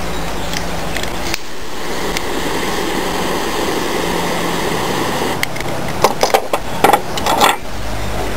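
Butane lighter lit and its flame hissing for a few seconds while it melts the cut end of nylon paracord, over a steady low hum. Several short, loud sounds come near the end.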